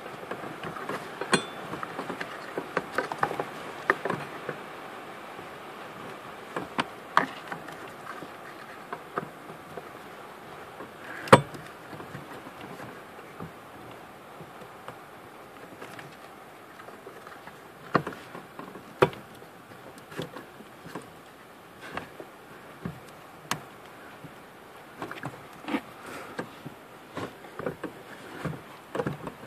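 Scattered clicks and knocks of plastic and metal as hands work a brake light switch onto the brake pedal rod under a pickup's dashboard, one sharper click about eleven seconds in, over a faint steady buzz.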